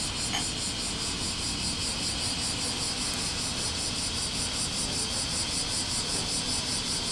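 One short light tick about a third of a second in, as a hand touches the stainless steel ashtray. Behind it a steady hiss with a rapid, even, high-pitched pulsing chirr, about five or six pulses a second, and a low rumble.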